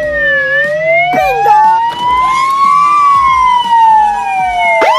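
Police siren in a slow wail. Its pitch falls, then climbs steadily for about two and a half seconds, then falls again, with a few short quick sweeps laid over it about a second in.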